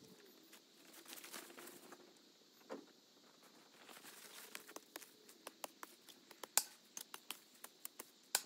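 Footsteps and rustling in dry grass and leaves, with quick irregular crackling clicks from about four seconds in.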